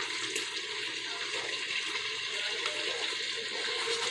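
Hot oil sizzling steadily around chicken wings as they fry, a continuous hiss with small crackles and pops.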